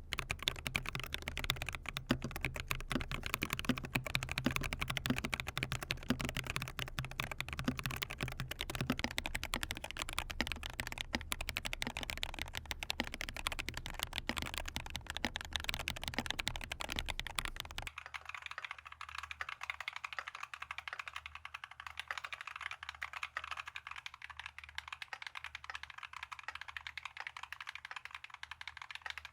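Continuous fast typing on a mechanical keyboard fitted with KTT Baby Pink linear switches, in a Monstargear Ninja96 Pro, giving a dense stream of smooth keystroke clacks. About two-thirds of the way in, the low, deep part of the sound drops away and the keystrokes sound thinner and clickier.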